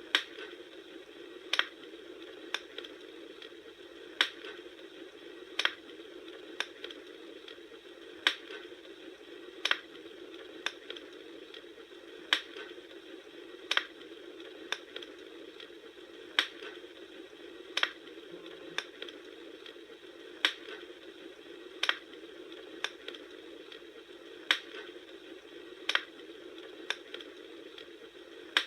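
Campfire crackling: a steady hiss with sharp pops about once a second. The pops fall in the same pattern of three roughly every four seconds, as in a looped recording.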